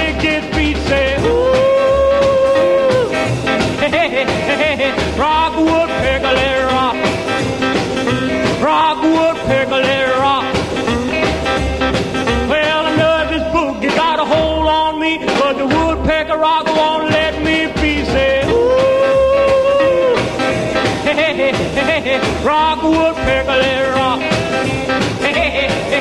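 Background music: an upbeat rock-and-roll style tune with a steady beat.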